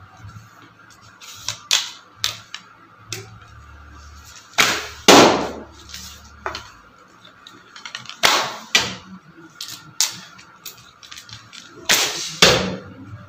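Three shots from a 35 lb fiberglass bow in rapid succession, about three and a half seconds apart, ringing in the hall. Each sharp release of the string is followed about half a second later by the arrow striking the target, with lighter clacks and clicks of arrows being handled between shots.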